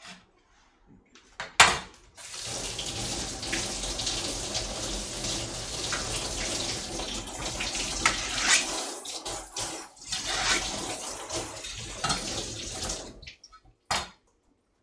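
Kitchen faucet running into the sink for about eleven seconds while cut Cheongyang chili pepper is rinsed under it to wash out the seeds. A sharp knock comes just before the water starts, and a shorter one shortly after it stops.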